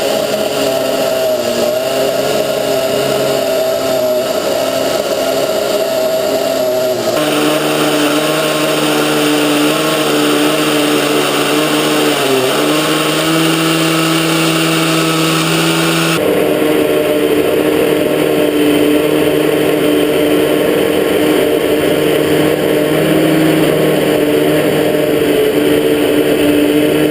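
Chainsaw engine on a homemade chainsaw sawmill running at steady high speed while sawing through dry cherry wood. The pitch dips briefly about halfway through as the chain takes load, and the overall sound shifts abruptly twice.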